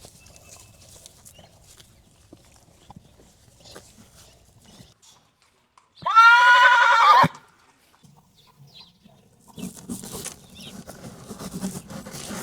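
A horse whinnying once, a loud quavering call of just over a second about six seconds in. Softer shuffling noises follow near the end.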